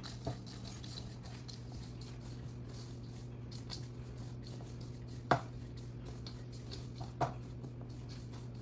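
Spatula stirring a crumbly streusel of butter, sugar, flour, cinnamon and chopped pecans in a mixing bowl: soft, frequent scraping, with two sharper knocks against the bowl about five and seven seconds in.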